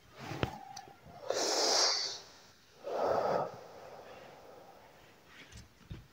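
A cigarette smoker's breath: a short click, then a long hissing pull of breath and, about a second later, a shorter breathy puff as smoke is blown out. A few faint small clicks follow near the end.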